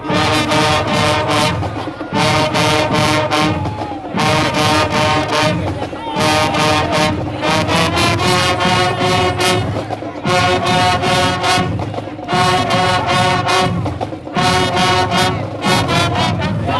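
Marching band playing loud brass chords in punchy phrases that restart about every two seconds, over drum hits.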